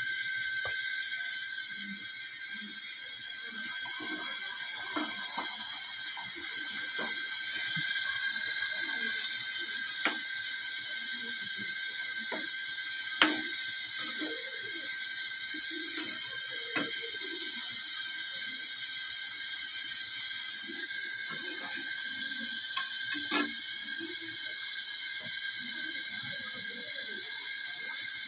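Luchi deep-frying in hot oil in a small pan: a steady sizzle, with a few sharp clicks of the metal slotted spoons against the pan, the loudest about halfway through.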